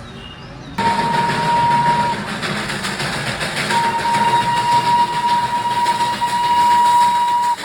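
Darjeeling Himalayan Railway toy train running with its whistle sounding, cutting in suddenly about a second in: a short blast, a pause, then a long held blast.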